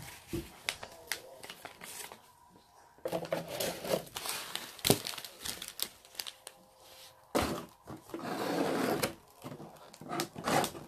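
Paper sheets and clear plastic packaging being handled, rustling and crinkling in two spells with a few light taps on the table.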